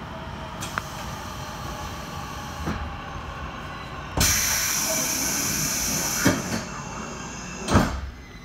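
Train station ambience with a loud burst of compressed-air hiss from a train, starting about four seconds in and lasting about three seconds, then two sharp knocks, the second and loudest near the end.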